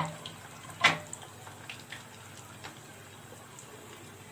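Kibbeh fritters deep-frying in hot oil in a pot, a faint steady bubbling with scattered small crackling pops. Two sharp knocks at the very start and about a second later stand out over the frying.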